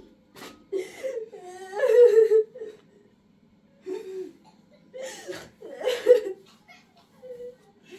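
A person laughing in several short bouts, over a faint steady low hum.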